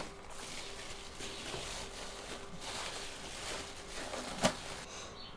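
Thin plastic bag crinkling and rustling as it is peeled off a lump of soft bread dough, with one sharp click near the end.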